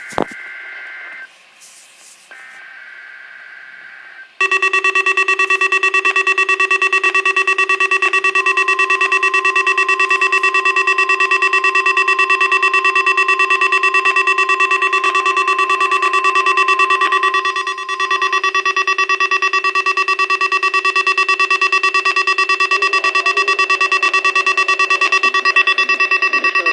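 NOAA Weather Radio weekly test signal: warbling SAME digital header data bursts for about four seconds, then a loud, steady, buzzy alarm tone that runs on. A thin steady warning alarm tone, the 1050 Hz tone that sets off weather radio receivers, sounds under it for about ten seconds.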